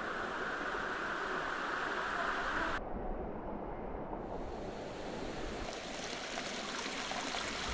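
Steady rushing of a spring-fed waterfall and creek, a constant hiss of falling water whose tone changes abruptly about three seconds in and again near six seconds.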